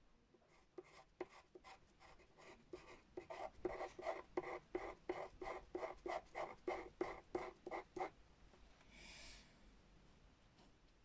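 Pastel pencil scratching on grey drawing paper in short, quick strokes, about three a second, which stop about eight seconds in. A brief soft hiss follows about a second later.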